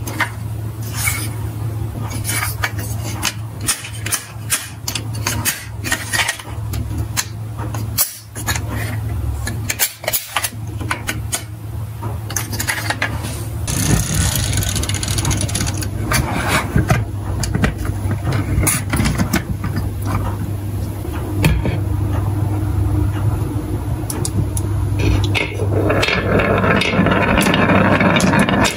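A toy truck being handled, with many sharp clicks and rattles over a low steady hum. Near the end, glass marbles roll and clatter down a wavy wooden HABA slope.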